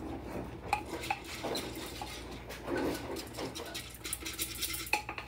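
Clinks and knocks of a glass popcorn popper bowl with a red plastic lid and base being handled and its lid fitted. A quick rattling runs through the middle.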